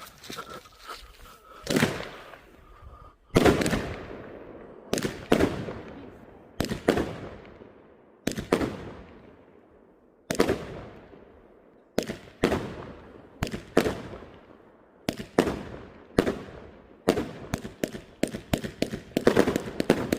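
Funke consumer fireworks battery firing shot after shot. Each shot is a sharp bang with a long echoing fade, coming one or two a second, then speeding up into a rapid volley near the end.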